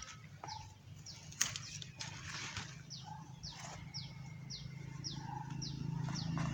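A bird giving short, high, falling chirps repeated about twice a second, over a low steady hum that grows louder near the end.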